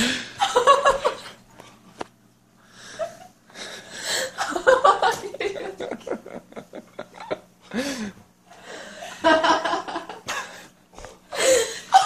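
People laughing excitedly in short, breathy bursts, with a few brief exclamations.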